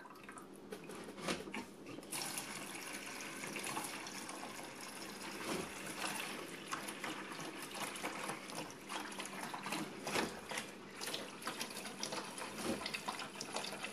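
Aquarium gravel vacuum siphoning tank water into a plastic bucket: a steady trickle and splash of falling water, with many small clicks, that grows louder about two seconds in.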